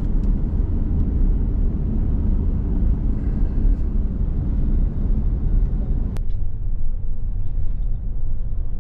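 Steady low rumble of a vehicle driving, engine and road noise heard from inside the cab, with a single sharp click about six seconds in.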